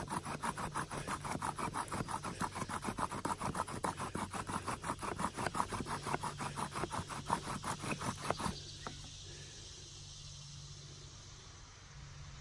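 Bow drill running for a friction fire: a wooden spindle, spun by a bow strung with wild dogbane cordage, grinding against the hearth board in a fast, even back-and-forth rhythm. The strokes stop abruptly about eight and a half seconds in, leaving a faint insect buzz.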